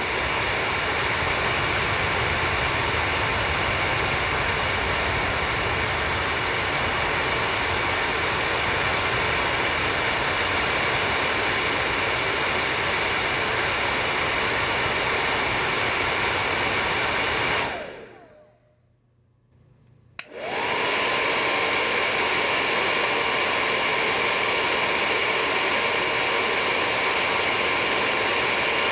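Electric hair dryer blowing with a steady rush of air and a motor whine. About two-thirds of the way through it is switched off and winds down to silence. A couple of seconds later a switch clicks and it starts again, the whine rising in pitch and then holding steady.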